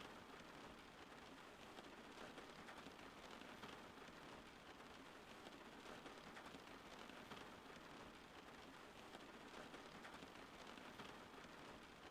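Steady rain, quiet and even: a continuous hiss dense with small drop ticks, with no thunder or other events.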